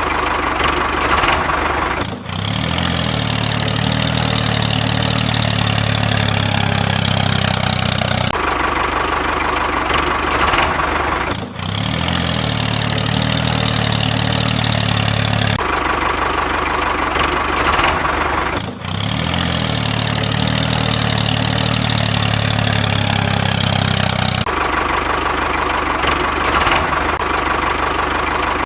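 Mini tractor engine idling with a knocking beat. The same stretch of sound repeats about every seven seconds, as in a loop.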